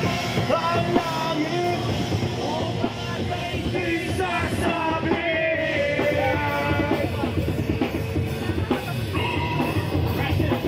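Live rock band playing loudly, with drum kit and electric guitar under a singer's voice through the microphone and PA.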